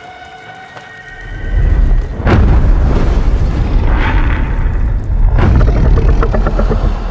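Monster-film sound design: a deep rumbling boom swells in about a second in and stays loud. Two sharp sweeps fall in pitch across it, about two and five seconds in. Soft sustained music tones at the start.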